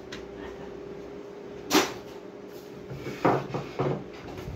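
A few sharp knocks and clicks from handling tools and the board on the workbench, the loudest a little under two seconds in and a quick cluster near the end, over the steady hum of an air fryer running in the room.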